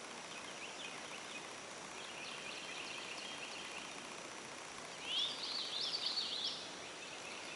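A songbird singing short runs of quick, high chirps, loudest from about five to six and a half seconds in, over a steady background hiss.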